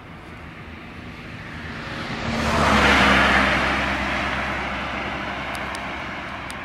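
A car passing on the adjacent road: tyre and engine noise swells to a peak about three seconds in, then fades slowly as the car draws away ahead.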